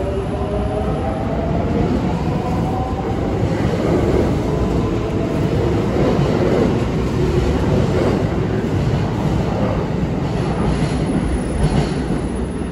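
Kintetsu 3200-series electric train moving along the platform. Its motor whine rises slowly in pitch for the first few seconds as it gathers speed, giving way to a steady rumble and clatter of wheels on rail as the cars pass close by.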